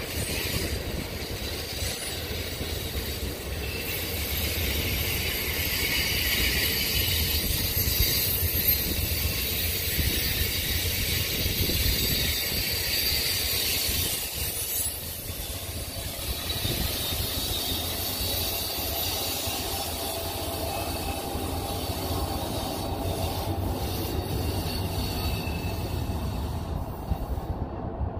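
Amtrak Superliner passenger cars rolling past on curved track: steady wheel-on-rail rumble with high wheel squeal through the first half, fading to a duller rolling noise as the train moves off.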